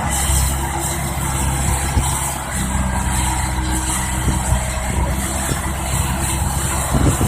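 Excavator's diesel engine running steadily under load, its note shifting slightly about two and a half seconds in.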